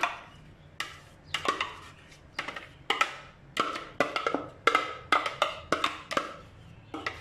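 Metal spoon knocking and scraping against the rim and sides of a glass bowl to get thick mango paste out: a run of sharp clinks, about two or three a second, each with a short ring.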